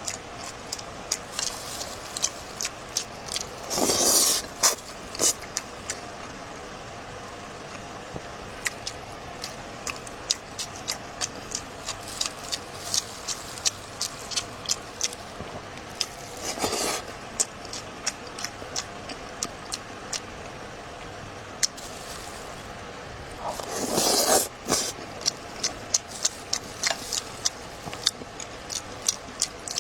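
Close-miked eating sounds: many small wet clicks and smacks of chewing, with a longer slurp now and then, about four times.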